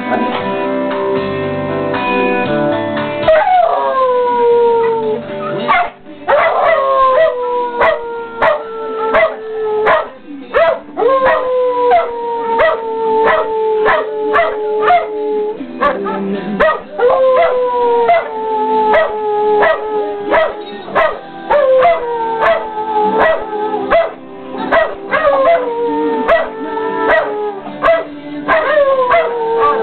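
Dalmatians howling along to a TV theme song. From about three seconds in come long howls one after another, each sliding down in pitch, with a second dog adding short yips and barks between them.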